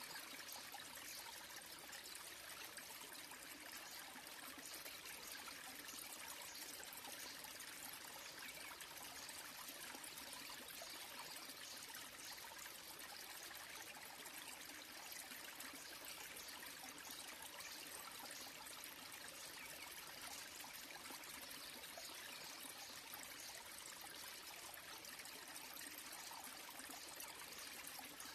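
Small waterfall trickling and splashing onto rocks, a faint, steady rush of water.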